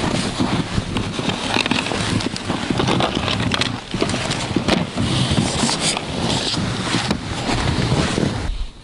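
Loud close handling noise: a plastic tackle box being picked up and opened, with clothing rubbing and scattered knocks and clicks. It stops abruptly near the end.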